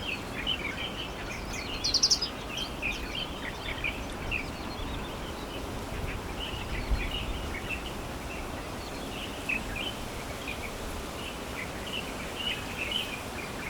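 Several small songbirds chirping and calling over an open grassland, with many short notes overlapping all the way through. About two seconds in comes a brief, rapid trill of higher notes, the loudest sound.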